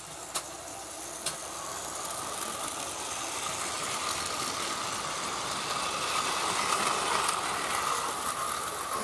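Battery-powered Plarail toy trains running on plastic track: a steady motor whir with wheels rattling, growing louder as a long train passes close by. Two sharp clicks come about half a second and just over a second in.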